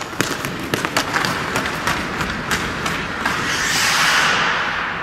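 Hockey skate blades cutting into the ice of a rink, with a run of sharp scrapes and clicks from the strides. A longer, louder hissing scrape of blades on ice builds up about three and a half seconds in and fades near the end.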